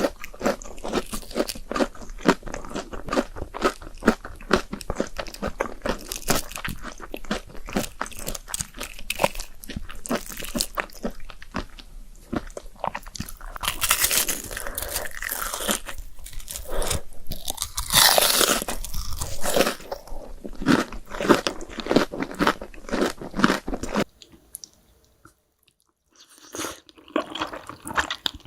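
Close-miked mukbang eating of carbonara noodles: a dense run of biting and chewing clicks, louder around halfway through, broken by a short pause of about two seconds near the end before the chewing resumes.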